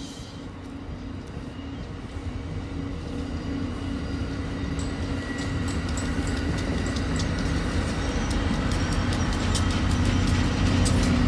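Shore Line East push-pull commuter train passing, coaches going by first, with the pushing diesel locomotive's engine drone growing steadily louder as it nears. From about halfway on, the wheels click sharply over rail joints.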